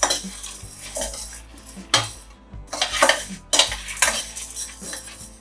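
Steel ladle scraping around a stainless-steel kadai, stirring dry-roasting lentils and dried red chillies, in repeated strokes about a second apart.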